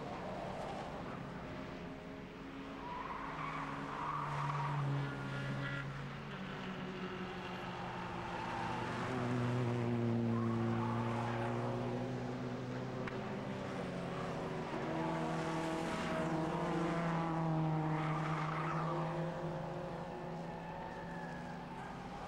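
Touring race cars' engines passing on the circuit, several engine notes overlapping and rising and falling in pitch as the cars go by and change gear.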